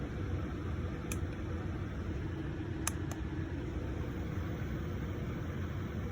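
Steady whir and low hum of a running air-conditioning unit's fan, with a few faint brief clicks.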